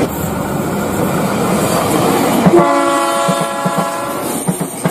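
KRL Commuter Line electric train running past, its wheels clacking over the rail joints. About two and a half seconds in, a train horn sounds and holds for nearly two seconds.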